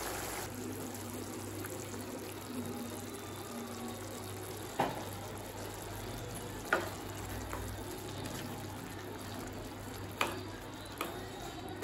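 Vegetable gravy simmering in a kadai with a steady low sizzle, while a spatula scrapes ground coconut paste into the pan, knocking sharply against the pan a few times.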